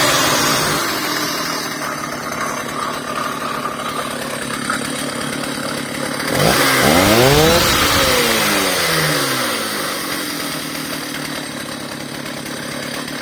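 Vintage Blitz 60 chainsaw engine running with its throttle locked: it settles from higher revs into a steady run, revs up sharply about six seconds in, then winds back down to a lower, steady speed.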